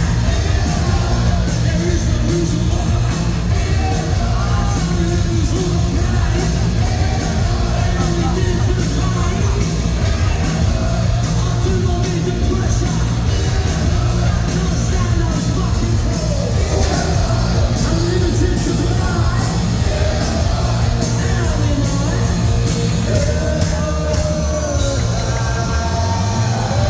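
Punk rock band playing live at full volume: electric guitars, bass and drums under a shouted, sung lead vocal.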